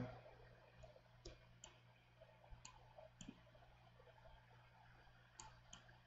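About half a dozen faint computer mouse clicks, spaced irregularly, over near silence with a faint low hum.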